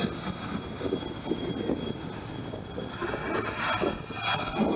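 New Holland combine harvester running while harvesting rice: a steady mechanical drone with a faint constant high whine, growing louder near the end.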